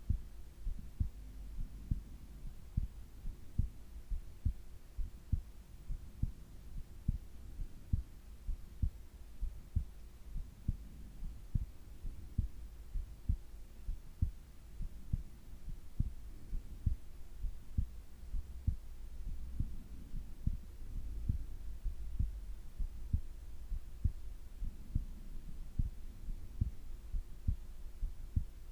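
A sleeping person's heartbeat picked up close against the body: a regular train of soft low thumps, with slow swells of breathing underneath and a faint steady hum.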